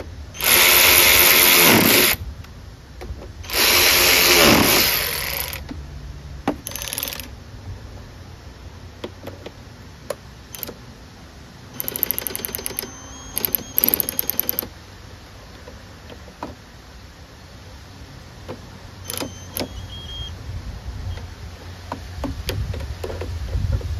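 Cordless drill-driver spinning bolts on a lawnmower's rear-drive housing in two whirring bursts of about a second and a half each, the second winding down in pitch at its end. A shorter burst follows. Later come two short runs of rapid clicking, then light clinks of tools and parts.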